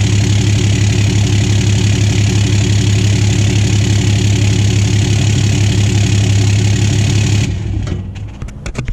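Dodge Ram's 6.7-litre Cummins inline-six turbo-diesel idling steadily, heard at the tailpipe through a new 6-inch exhaust tip. The sound dies away near the end.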